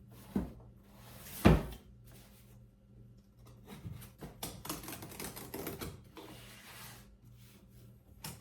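Cardboard packaging being handled and opened: one solid thump about a second and a half in, then a run of light clicks and rustles.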